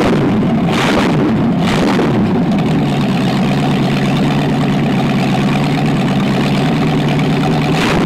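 Freshly rebuilt, just broken-in V8 on an engine run stand, blipped up and down in the first couple of seconds while the carburetor is adjusted, then settling into a steady idle; the revs start to climb again at the very end.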